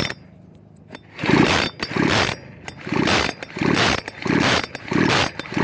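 Echo CS-4400 two-stroke chainsaw's recoil starter pulled about seven times in quick succession, each pull a short whirr of the rope and the engine turning over against its compression, without it settling into running.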